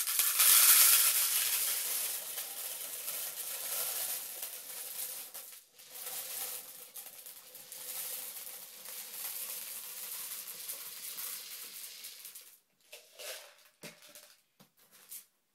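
Small gravel poured from a plastic tub into a clear plastic container, a steady rattling hiss of stones pattering onto plastic and onto each other, with a brief pause about five and a half seconds in, trailing off after about twelve seconds. A few light knocks and clatters follow near the end.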